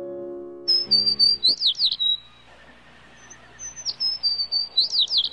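Birds chirping in two short bursts of high twittering with quick downward sweeps: a morning birdsong sound effect. The last notes of soft music fade out in the first second or so.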